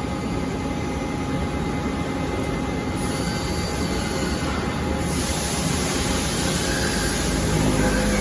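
Industrial machinery running steadily: a continuous rushing noise with a few faint steady tones, which shifts slightly in its upper range about three and five seconds in.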